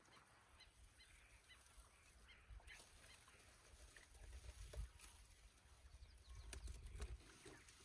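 Near silence, with a series of faint short bird calls over the first few seconds, then a faint low rumble building from about halfway through.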